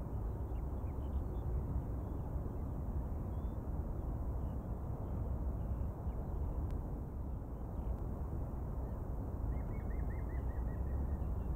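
Steady low outdoor rumble with faint bird chirps, and a short falling trill from a songbird near the end.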